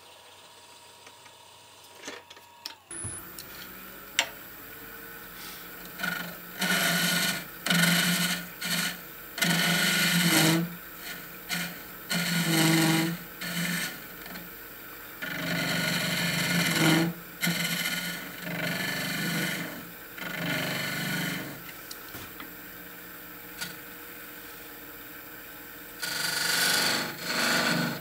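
Record Power wood lathe running with a steady hum that comes in about three seconds in. A hand-held turning tool cuts into the end grain of the spinning candleholder in repeated loud scraping bursts, each lasting one to three seconds, as it hollows the recess for the candle.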